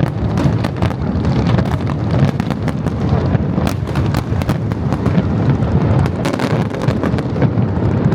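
Fireworks display: a dense run of overlapping sharp bangs and crackles, several a second, over a continual low rumble.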